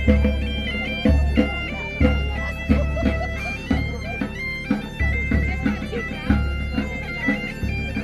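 Bagpipe music: a chanter plays a stepping melody over a steady drone, with deep beats about once a second.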